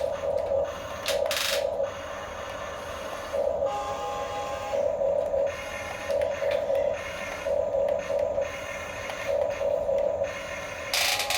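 Small electric drive motors and gearboxes of radio-controlled Huina construction models whining in repeated short bursts as they are driven on and off, with a few brief rough scraping noises.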